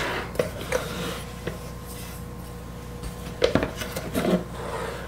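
Hard plastic and metal housing of a Hamilton Beach breakfast burrito maker being handled and turned over on a countertop: a knock at the start, a few light clicks, and a sharper knock about three and a half seconds in.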